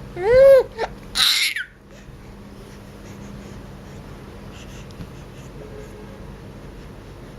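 An animal squeaking: one call that rises and falls in pitch, then a shorter, harsher high squeal, both within the first two seconds.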